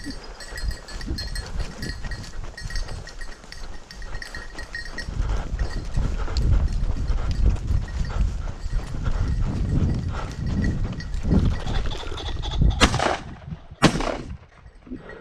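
Two 16-gauge shotgun shots about a second apart near the end, each with a short echo, after steady rustling of legs pushing through tall dry grass.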